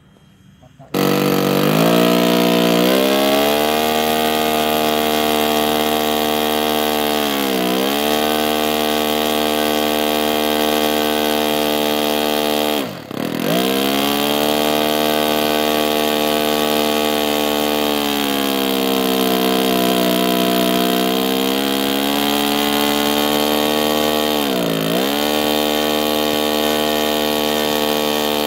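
Four-stroke model airplane engine in an RC Tucano starting up about a second in and running at speed. Its pitch dips and recovers several times, and once, midway, it nearly cuts out before picking up again.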